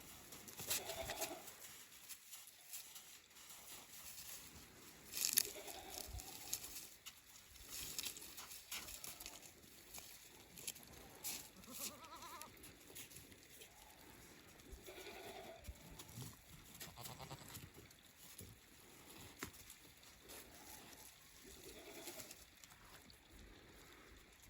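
Goats bleating, short calls repeating every few seconds, with a few light clicks between them.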